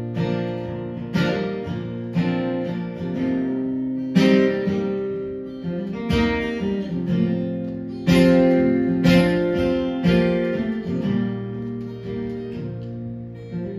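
Live band music: acoustic guitars strumming chords in an instrumental passage without singing, with a fresh chord attack every second or so.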